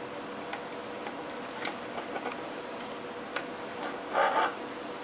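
Masking tape being peeled back off a painted plastic model truck body, with small crackling ticks and a short rasping tear about four seconds in.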